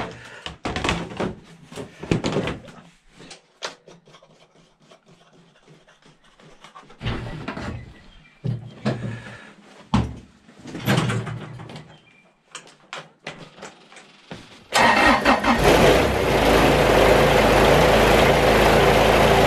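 Scattered clicks and knocks of hands working around a Kubota BX compact tractor, then about fifteen seconds in its small three-cylinder diesel starts quickly and runs steadily, its pitch shifting near the end. It starts strongly on a freshly fitted 450 cold-cranking-amp battery.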